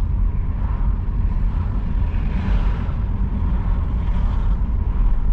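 Car cabin noise while driving: engine and tyre rumble running steadily, with a brief swell of rushing noise around the middle.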